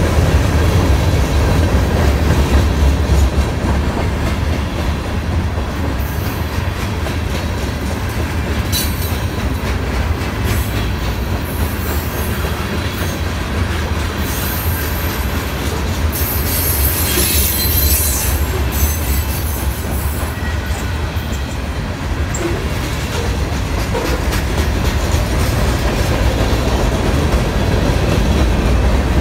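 Freight train cars (covered hoppers and gondolas) rolling past: a steady low rumble of steel wheels on rail, with bursts of high-pitched squealing in the middle.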